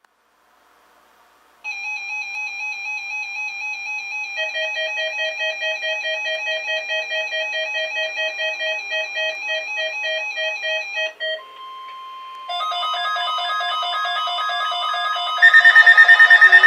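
Electronic alert tones from an HH50 weather alert radio set off by the weekly test: after a second and a half of silence, warbling beeps start, a lower fast-pulsing beep joins about four seconds in, and after a brief steady tone near eleven seconds the beeping comes back louder and denser.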